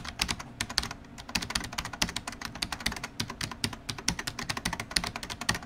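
Computer keyboard typing: a rapid, irregular run of key clicks, many a second, stopping abruptly.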